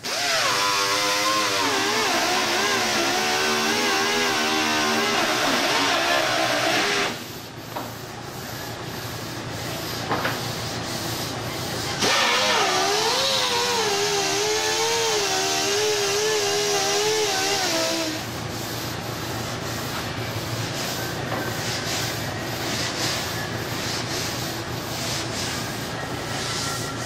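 Power sander running on a primed car body panel, its whine wavering in pitch, in two runs of about seven and six seconds. Between and after the runs comes a steady rhythm of sanding strokes, about two a second, as the primer is sanded with 180-grit paper to show up high spots and imperfections.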